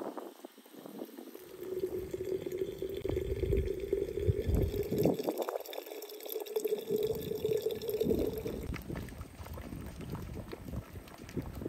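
Water pouring in a steady stream from a samovar's tap into a glass jar of grapes, the jar's ringing tone rising slowly in pitch as it fills. Near the end the pouring stops, leaving water bubbling around glass jars in a pot.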